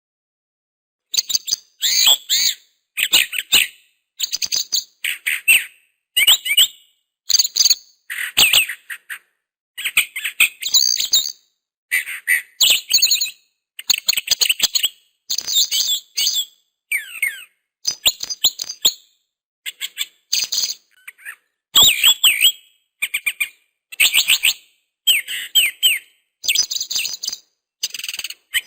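Bird chirping in short phrases of quick high notes, about one phrase a second, with dead silence between them; the chirping starts about a second in.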